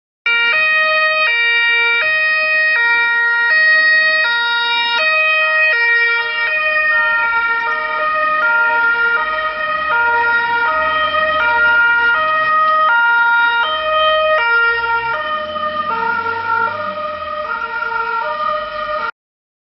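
Two-tone police siren alternating between a high and a low note about every three-quarters of a second, over a low engine and road rumble. It starts and cuts off abruptly.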